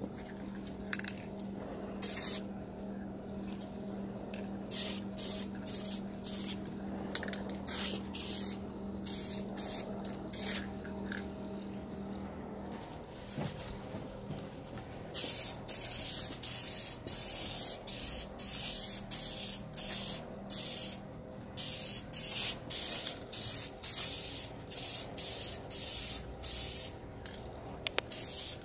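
Aerosol can of vinyl spray paint sprayed in short bursts of hiss for light coats, a few at first, then many quick on-off bursts through the second half. A steady low hum runs underneath and stops about halfway.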